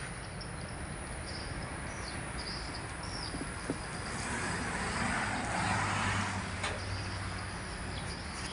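Outdoor background noise as a vehicle passes: a wash of noise with a low hum that swells and fades about halfway through, over faint high chirps.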